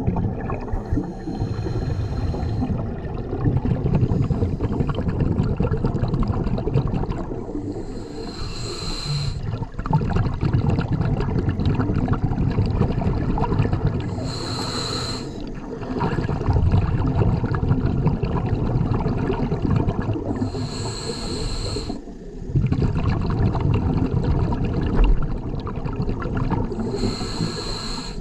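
Scuba diver breathing through a regulator underwater: a hissing inhale about every six seconds, four times in all, each followed by a long rumble of exhaled bubbles.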